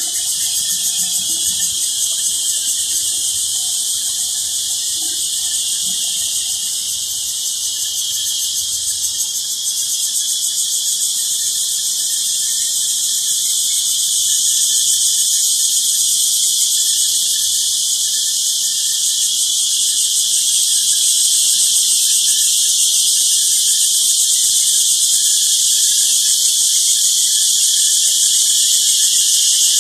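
Cicadas calling in a dense chorus: a loud, continuous high-pitched buzzing drone with a fast, even pulse, slowly growing louder.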